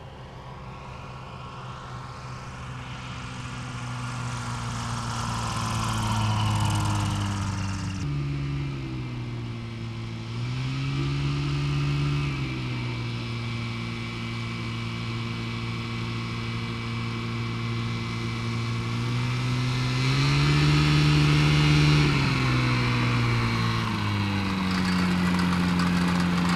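Ultralight aircraft engine and propeller getting louder as the plane taxis closer. The engine note drops suddenly about a third of the way in, then rises and falls twice as the throttle is opened and eased back.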